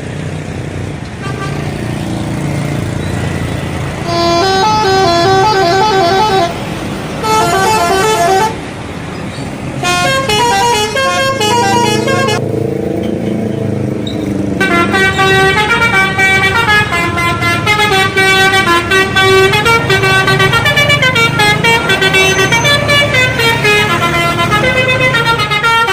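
Indonesian bus telolet horn playing quick stepping note sequences in three short bursts, then one long continuous tune over the second half. The bus's engine runs underneath as a steady low rumble.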